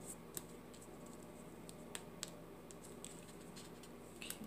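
Paper card layers being handled and pressed into place with fingertips: faint scattered ticks and light rustles of cardstock.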